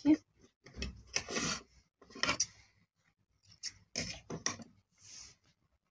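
Cloth rustling and rubbing in a string of short scrapes, with thread being pulled through fabric, as a suit piece is handled during hand-sewing with a needle.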